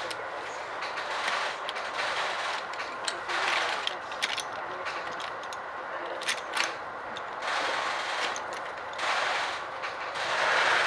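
Inside a moving Metra Rock Island commuter train car: a scattered run of sharp clicks and knocks over a rushing noise that swells and fades several times.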